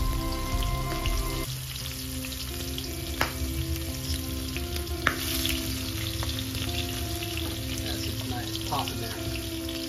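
Floured, shell-on shrimp sizzling and frying in hot olive oil in a skillet, with a steady crackle and two sharp pops of spattering oil about three and five seconds in.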